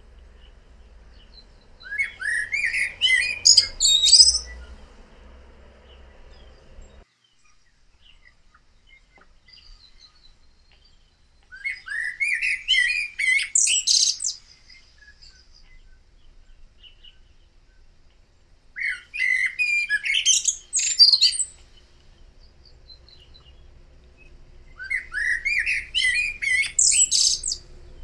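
Common blackbird (Eurasian blackbird) singing four separate song phrases several seconds apart. Each phrase is a low warble that breaks into a high, squeaky twitter at its end.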